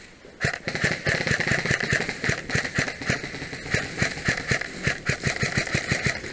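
Airsoft electric guns firing full-auto, a rapid rattle of shots over a steady high buzz, starting about half a second in and running on with only brief breaks.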